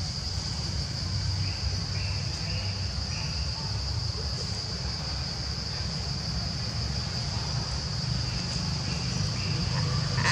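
Steady high-pitched drone of forest insects over a low rumble.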